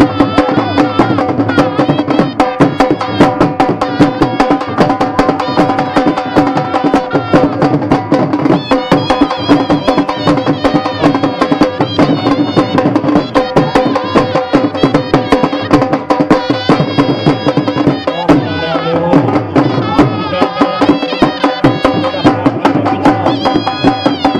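Traditional folk dance music: a fast, steady drum rhythm under a sustained melody line, driving the dancers.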